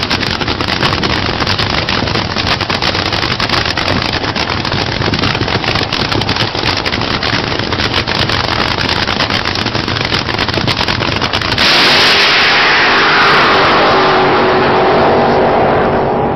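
Drag racing cars' engines making a dense, crackling racket, recorded at a drag strip. About twelve seconds in the sound jumps louder and one engine's pitch falls steadily over the last few seconds.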